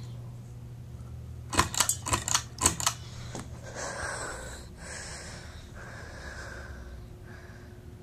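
Hampton Bay ceiling fan: a quick run of sharp clicks about a second and a half in, typical of its pull-chain switch, then the fan running with a steady motor hum and the whoosh of its spinning blades.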